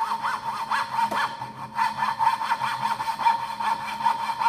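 Coping saw blade rasping back and forth through a thin board in quick, short strokes, about four a second, with a brief pause about a second and a half in. The blade is being turned on the spot within the kerf while it keeps cutting, the way to swing a coping saw round a tight corner without snapping the blade.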